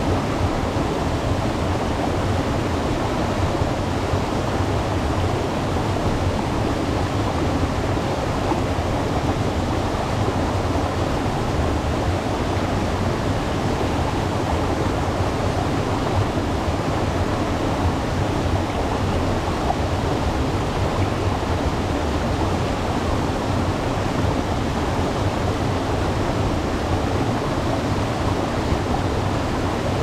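Waterfall: falling water rushing steadily, deep and full, with no letup.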